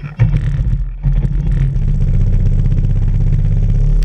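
Jet ski engine running steadily at low throttle, with a brief dip in its sound about a second in.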